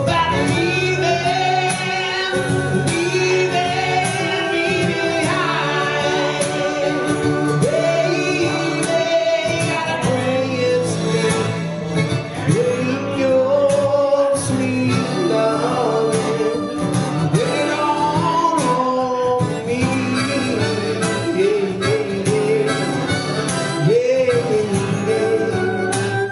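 Live acoustic guitar strumming chords under a harmonica playing a bending melody line.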